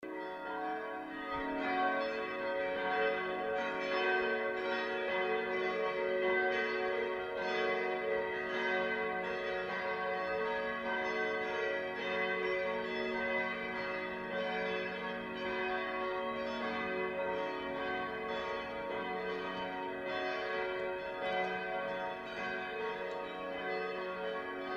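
Church bells ringing continuously, several bells at different pitches struck in quick succession, their tones overlapping and ringing on.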